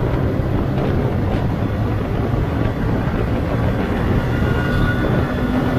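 Yamaha R15 V2 sport bike's single-cylinder engine running steadily at cruising speed, heard from the rider's seat.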